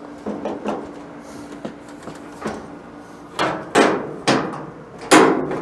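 A series of knocks and clunks as a clothes dryer's panels and parts are handled and fitted back into place. The loudest come about three and a half, four and five seconds in.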